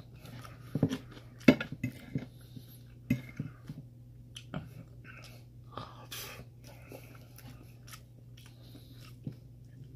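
Metal fork clinking and scraping on a plate of stir fry and rice, a handful of sharp clicks spread through, with close-up chewing between them.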